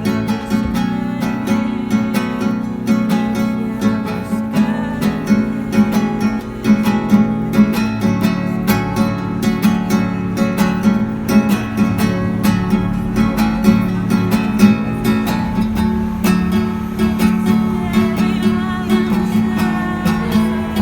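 Music: an instrumental stretch of a song, carried by strummed and plucked acoustic guitar, with no singing.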